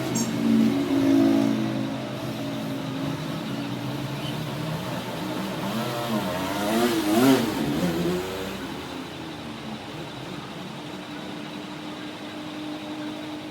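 A motor or engine running with a steady hum; about six seconds in its pitch wavers up and down and it gets louder, then it settles back to a steady, quieter hum.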